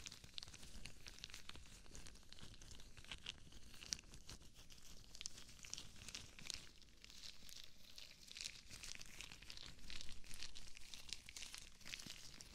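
Rubber gloves rubbing and crinkling close to the ears of a binaural microphone: a steady run of small crackles and rubbing sounds, a little louder about ten seconds in.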